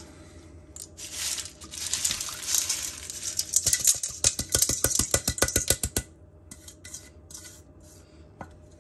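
Washed pinto beans poured from an aluminium colander into a slow cooker's crock of water: a rushing slide and splash of beans, then a quick run of sharp clicks and rattles for about two seconds as the colander is shaken out over the crock. Near the end come a few softer clicks as the last beans are pushed out by hand.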